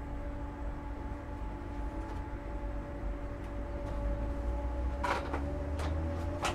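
Class 313 electric multiple unit heard from inside its motor coach: a steady whine from the GEC traction motors and gears over a low rumble. The rumble swells and the whine starts to rise in pitch near the end, and a few sharp knocks come in the last second and a half.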